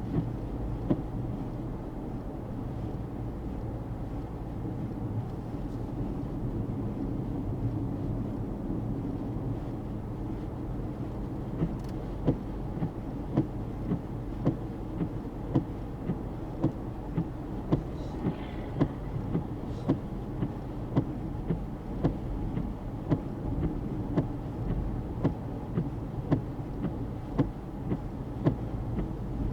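A car driving, heard from inside: a steady low rumble of engine and tyres. From about twelve seconds in, a short knock or tick repeats regularly, about every three quarters of a second.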